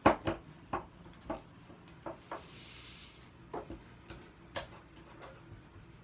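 Homemade glue slime being worked by hand over a bowl: about a dozen short slaps and knocks at irregular intervals, the loudest at the very start.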